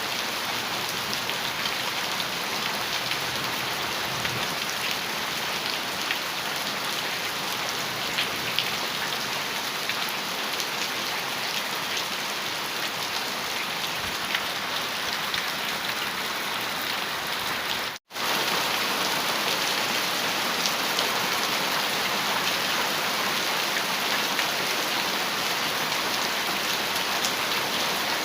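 Heavy rain falling steadily on a metal roof, a dense patter of many small drop ticks. About 18 seconds in the sound cuts out for a split second and comes back slightly louder.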